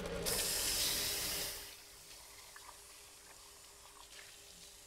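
Kitchen tap running with water splashing as a lid is rinsed under it, shutting off after about a second and a half; a few faint clinks follow.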